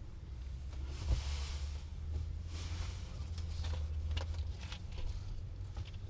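Handling noise of a battery cable being pushed along a car's underbody and pressed into its clips: a sharp knock about a second in, short scraping and rustling, and small clicks, over a steady low hum.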